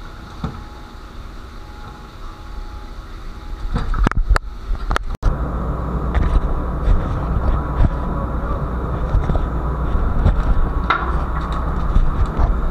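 A few sharp knocks, then from about five seconds in a louder low rumble with uneven, gusty peaks: wind buffeting the microphone on a ship's open deck.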